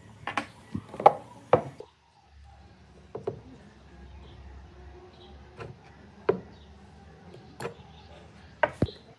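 Scattered sharp clicks and knocks of a small speaker driver and hand tools being worked against a worn wooden speaker cabinet, as the driver is pried out of its mounting hole. The knocks come close together in the first two seconds, then singly every second or so.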